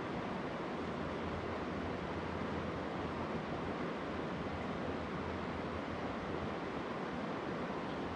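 Steady rush of flowing river water, an even noise that stays the same throughout.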